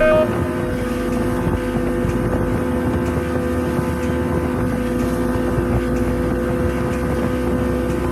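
Motorboat engine running at a steady speed, a constant droning hum, with wind buffeting the microphone and rushing water noise.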